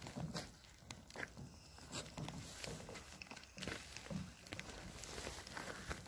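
Faint, slow and uneven footsteps on grass under a thin layer of fresh snow.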